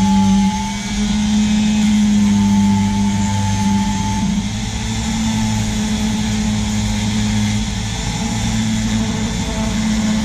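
Small handheld rotary tool with a sanding drum running steadily as it grinds a chipped revolver grip panel into shape, its pitch shifting slightly a few times.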